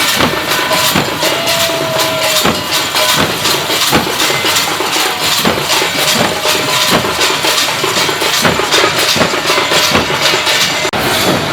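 Matua devotional percussion: drums beaten at about two strong beats a second under a dense clanging of cymbals or gongs, with a short break near the end.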